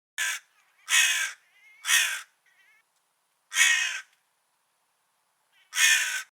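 A crow cawing five times at uneven spacing, the gaps growing longer before the last two caws, with a few faint softer notes after the third caw.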